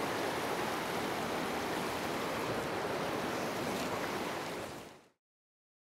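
Steady rush of a small river's flowing water, fading out about five seconds in.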